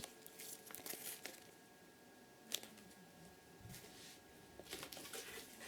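Faint handling noise: soft rustles and light knocks as objects are moved about, with one sharp click about two and a half seconds in, over quiet room tone.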